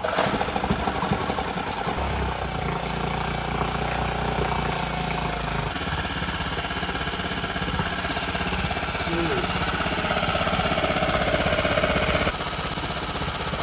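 Yamaha 6 HP four-stroke outboard pull-started and catching at once, then running steadily, its engine speed shifting a few times. It is being test-run with its lower unit in a bucket of water, after its clogged idle jet was cleared to cure a lean stall at low throttle.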